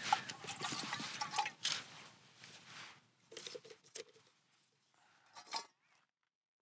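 Camp dinner being eaten or prepared: a utensil scraping and clinking in a cooking pot or meal container, with rustling, dying away after about three seconds into a few soft clicks.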